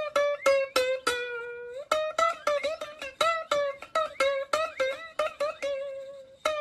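Background music: a plucked-string tune of quick, evenly struck notes, each fading fast, with one longer held note about a second and a half in.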